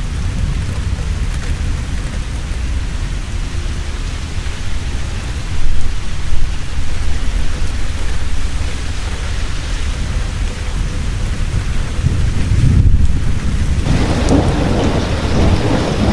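Heavy rain falling steadily with a continuous low rumble of thunder. The thunder swells loudest about six seconds in, and the rain grows louder near the end.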